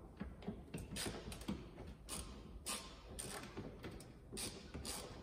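A hand tool unscrewing a screw from a car's front wheel-arch liner: a series of short clicks and scrapes at irregular intervals, with the sharpest ones near the middle and near the end.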